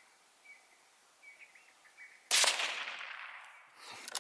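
Faint bird chirps, then a single gunshot a little over two seconds in, its report dying away over about a second and a half.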